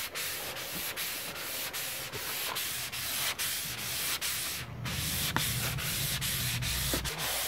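400-grit sandpaper on a sponge-backed hand sanding block rubbing over Coppercoat copper-epoxy antifouling on a boat hull, in steady back-and-forth strokes about two or three a second, with a brief pause about two-thirds of the way through. The light sanding freshens the copper surface to activate it before launch.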